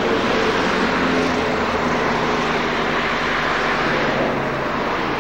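Steady engine hum and road noise of a moving vehicle, heard from inside it.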